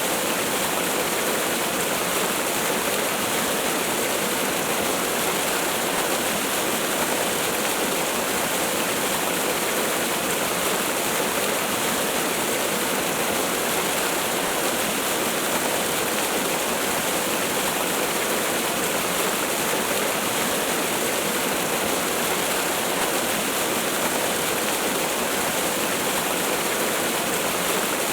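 Waterfall pouring steadily: a constant, even rush of falling water that does not change.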